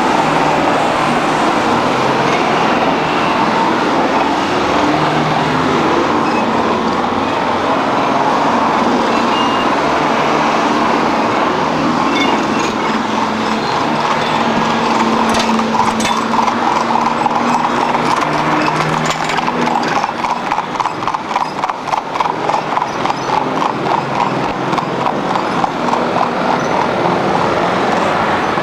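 Steady road noise, then, in the second half, a horse's hooves clip-clopping at an even pace on the road as a horse-drawn wagon passes.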